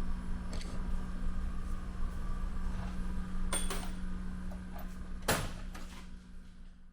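Steady low hum with scattered knocks and clatter, the loudest knock about five seconds in; the sound fades out at the end.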